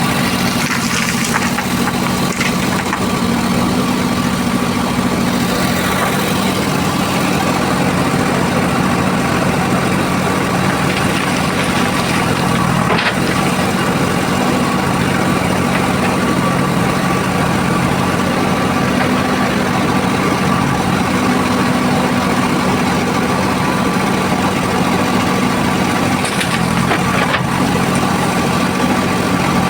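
A vehicle engine idling steadily at an even, unchanging pitch.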